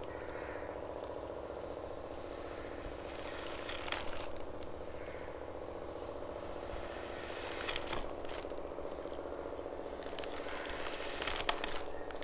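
Kinetic sand being handled, with soft crackling scrapes and a few sharp ticks, about four seconds apart, over a steady low hum.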